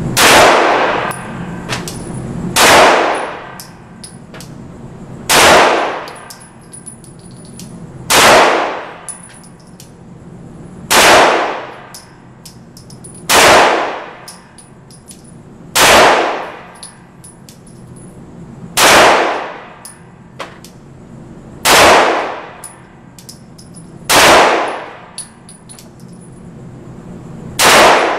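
Glock 19 9mm pistol fired as slow, deliberate single shots: eleven shots about two and a half to three seconds apart, each trailing off over about a second, with light ticks between them.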